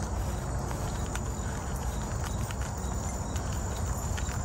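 Insects chirring in one steady high-pitched tone, over a continuous low rumble and soft footsteps on grass.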